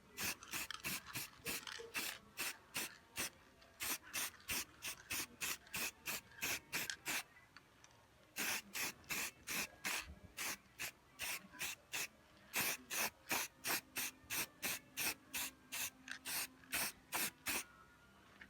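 Spray paint hissing onto an exhaust pipe in many short bursts, about three a second, in runs with brief pauses between them.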